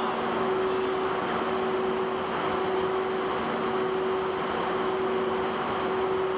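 EF81 electric locomotive standing with its onboard equipment running: a steady droning hum with one clear pitch over a constant wash of noise, a lower tone fading in and out.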